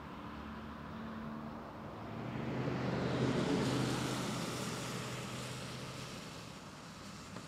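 An SUV passing close by on a wet road: tyre hiss and engine noise swell to a peak about three to four seconds in, then fade away.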